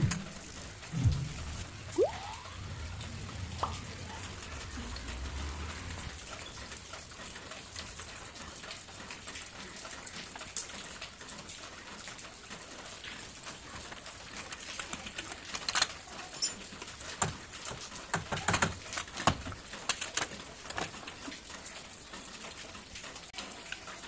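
Scattered metallic clicks and knocks of a spanner and loose bolts while a starter motor is unbolted from a Bajaj auto rickshaw's four-stroke engine, with a low rumble in the first few seconds and a cluster of clinks in the second half.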